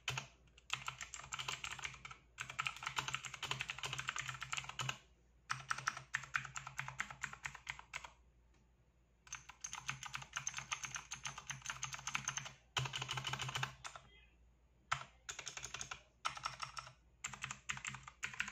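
Ajazz mechanical keyboard with blue switches being typed on quickly: rapid, dense clicky keystrokes in runs of a few seconds, with brief pauses between runs and the longest pause about eight seconds in.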